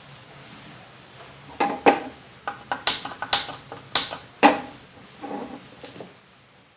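Metal kitchen utensils clinking and knocking on the stove: about nine sharp strikes, each with a short ring, starting a second and a half in.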